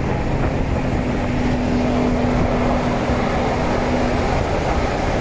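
A freight train rolling past: a steady, loud rumble of the cars on the rails, with a low steady hum that fades out about four seconds in.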